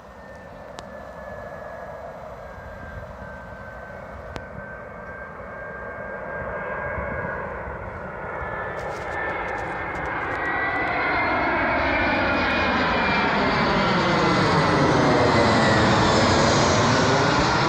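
Jet airliner's engines growing steadily louder as the plane approaches close overhead, with a thin high whine over the engine noise. It is loudest near the end.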